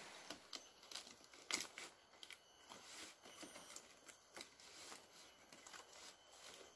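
Faint rustling and crinkling of woven palm leaves being handled, with irregular light snaps and clicks.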